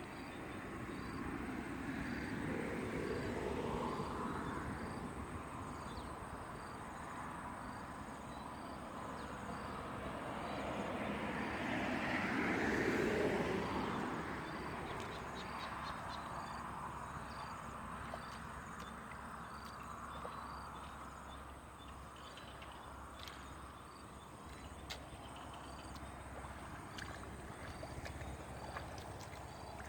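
Outdoor ambience: insects chirping in an even, regular pulse, under a rushing noise that swells and fades twice.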